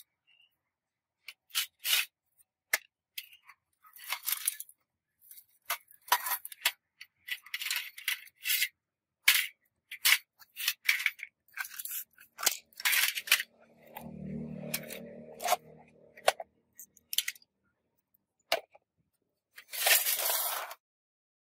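Hand work on small hard laptop parts: a run of separate clicks, taps and short scrapes. A brief low hum comes about two-thirds of the way in, and a longer scrape comes near the end.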